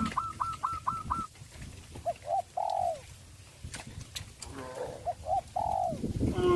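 A chicken clucks in a fast run of short notes for about the first second. Then a dove coos twice, each phrase two short notes followed by a longer note that rises and falls.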